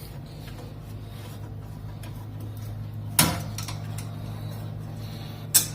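Two sharp clicks from hand tools and screws being worked loose around a car headlight's mounting, a couple of seconds apart, over a steady low hum.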